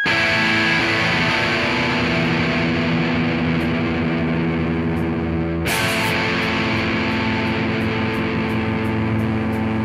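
Loud, dense music built on distorted electric guitar. It breaks off abruptly a little past halfway and goes straight on into a new section with a steady, quick high ticking over it.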